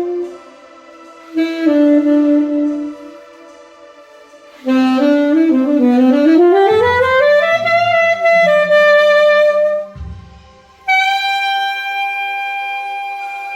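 Alto saxophone playing in separate phrases with pauses between: a held note about a second in, a line that slides upward in pitch from about five seconds in with lower notes sounding beneath it, and a long steady high note from about eleven seconds in.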